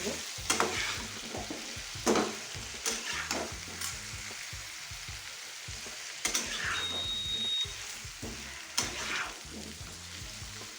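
Diced pumpkin and pui (Malabar spinach) stalks frying in oil in a kadai, sizzling steadily, while a spatula stirs through them with sharp scrapes and knocks against the pan at irregular intervals.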